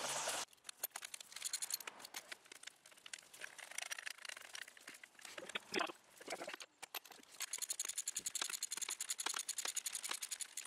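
Serpentine belt being worked onto the engine pulleys by hand, with quiet rubbing and light knocks. From about seven seconds in, a ratchet wrench clicks rapidly and evenly as the belt is tightened.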